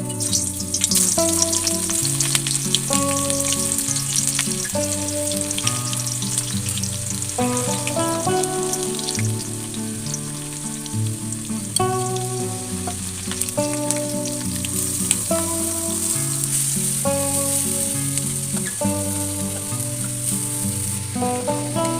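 Food frying in hot oil in a pan, a steady sizzle with crackling, heaviest in the first few seconds. A music track with a walking bass line plays underneath.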